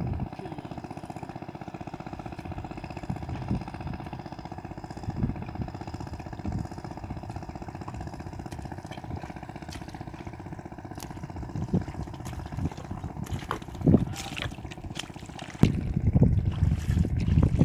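An engine drones steadily in the background, with occasional squelches and splashes from feet and hands in wet mud and shallow water. The mud and water sounds grow louder and more continuous near the end.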